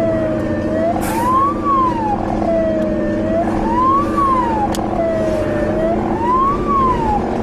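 Russian police car siren wailing, each sweep climbing quickly and falling slowly back, repeating about every two and a half seconds, over a steady engine and road drone from the chasing vehicle.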